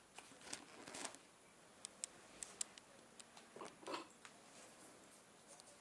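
Near silence: room tone with faint scattered clicks and ticks.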